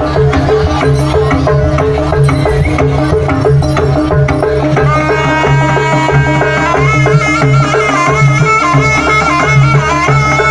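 Loud live Javanese jaranan gamelan music: drums and gongs keep a steady repeating pattern, and a reedy shawm melody joins about halfway through.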